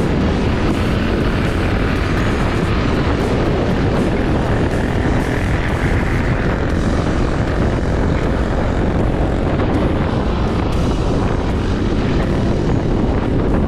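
Steady noise of a vehicle on the move: engine drone and wind rushing over the microphone, unchanging throughout.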